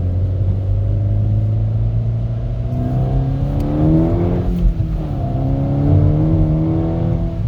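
Seat Leon Cupra R's 2.0 TFSI turbocharged four-cylinder engine heard from inside the cabin, pulling under acceleration. The revs rise, drop at a gear change a little past halfway, then rise again. It is running clean after the repair of its cylinder-4 misfire.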